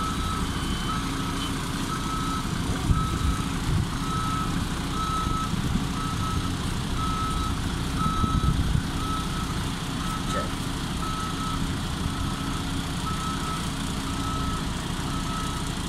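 Reversing alarm of a Volvo truck tractor backing up, a single-pitch beep repeating about once a second. The steady low run of the truck's diesel engine sits beneath it.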